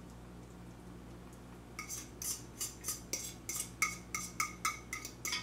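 Metal spoon clinking and scraping in a serving bowl while stuffing is scooped out: a quick run of sharp clinks, about four a second, each with a short ring, starting a little under two seconds in.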